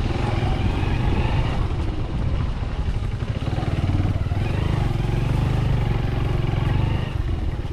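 Small motorcycle engine running steadily while riding, a low rumble that eases off slightly near the end.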